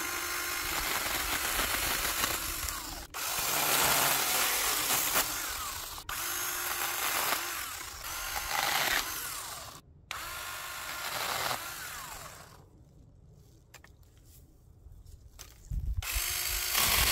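SnapFresh 20-volt battery mini chainsaw running and cutting through small dead pine branches, its electric motor whining steadily with its pitch sagging and rising under load, and a few brief stops. It goes quiet for about three seconds past the middle, then starts up again near the end.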